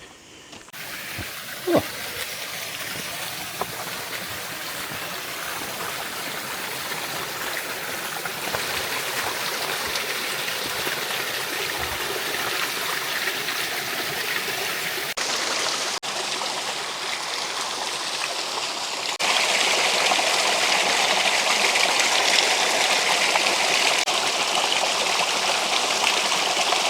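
Water of a forest stream and small waterfall rushing steadily, jumping louder about 19 seconds in. A single short sharp sound about two seconds in.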